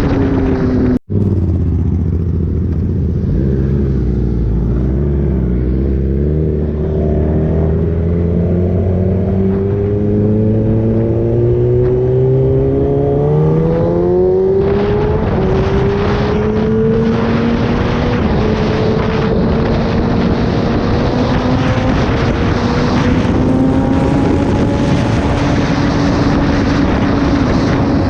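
Kawasaki ZX-10R inline-four through an SC-Project exhaust, ridden on the road. The revs climb slowly for about ten seconds, a gear change comes near the middle, and the revs then rise gently again.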